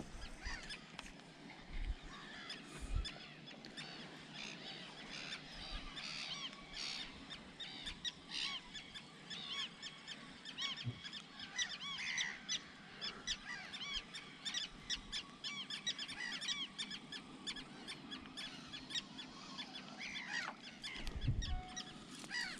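Many small birds chirping and calling densely and steadily, with a few dull low thumps, one near the end.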